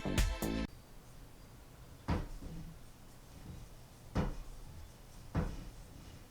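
Background music that stops under a second in, followed by three separate dull knocks about two seconds apart, like wooden pieces bumped together.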